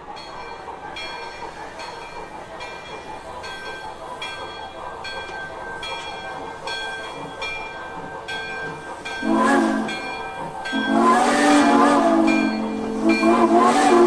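Sound-equipped Broadway Limited model of a New York Central J-1e Hudson steam locomotive, its speaker playing steady steam chuffs, about one and a half a second. About nine seconds in the steam whistle sounds a short blast, then two longer blasts, louder than the chuffing.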